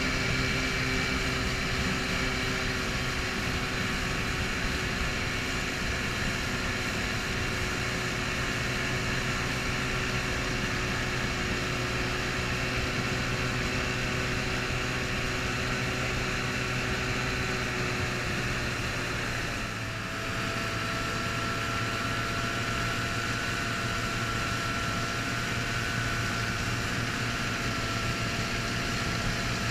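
Antique outboard motors running steadily at speed on small aluminium boats. The engine pitch shifts about twenty seconds in.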